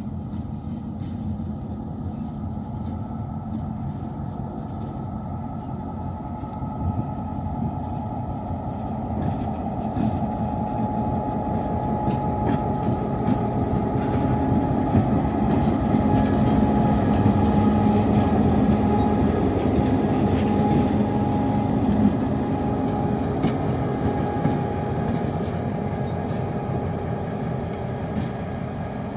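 A train running on the rails: a steady engine note with rumbling wheel noise. It grows louder to a peak about two-thirds of the way through, then eases off.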